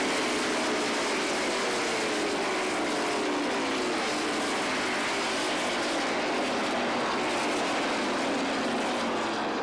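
Stock car V8 engines at racing speed as a pack of cars runs past, their engine notes sliding down in pitch as each car goes by, over a continuous dense engine noise.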